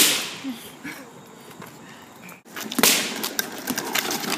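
A latex balloon bursts with a sharp bang that dies away over about a second. A little under three seconds in, a second balloon pops, followed by about a second and a half of crackly, clicking rattle.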